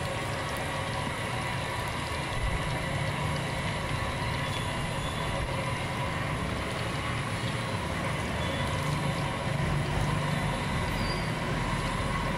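Steady sizzle of bánh cống cakes deep-frying in a wok of hot oil, under a low rumble that swells slightly near the end.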